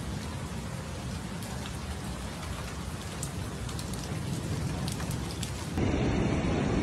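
Heavy rain falling, a steady hiss scattered with fine drop ticks. About six seconds in it cuts abruptly to a louder, deeper rush of floodwater.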